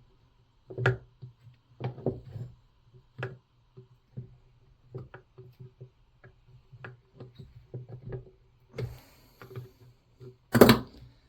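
Chainsaw parts being handled on a workbench: scattered light clicks and knocks, with a louder knock near the end.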